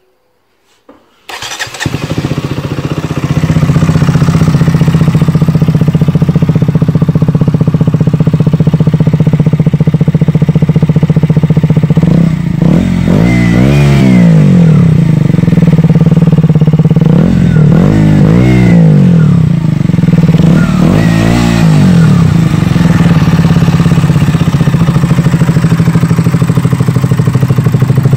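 KTM Duke 125's single-cylinder four-stroke engine starting about a second in and settling into a steady idle, then revved three times in quick blips that rise and fall in pitch, the first about halfway through.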